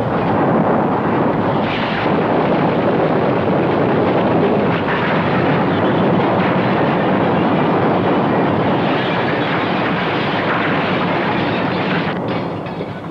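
Earthquake sound effect: a loud, steady rumble of destruction without distinct separate crashes, fading away near the end.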